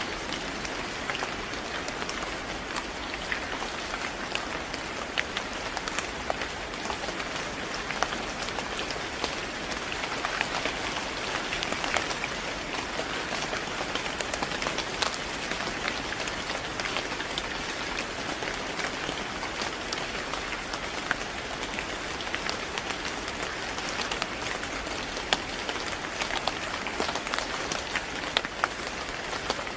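Steady rain falling on a hard surface, a constant hiss sprinkled with many sharp individual drop ticks.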